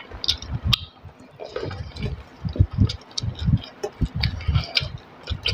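Close-miked eating sounds: irregular soft chewing and wet mouth noises, with small clicks and squishes of rice being mixed by hand on a steel plate.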